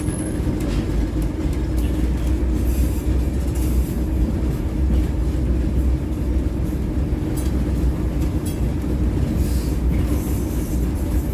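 Vintage J.G. Brill trolley car running along the track, heard from inside the car: a steady low rumble of the wheels on the rails under a constant hum, with a few brief high hisses.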